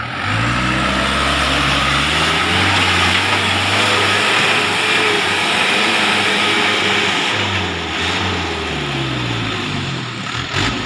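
Truck engine labouring under load, its revs rising and falling several times, with a brief drop just before the end.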